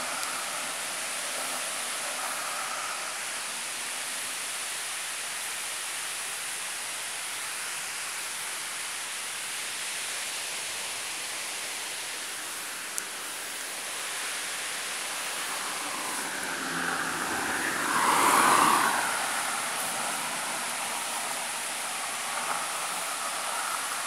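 Steady rushing noise throughout, with a road vehicle passing close by: it swells from about two-thirds of the way in, is loudest near the three-quarter mark, then fades.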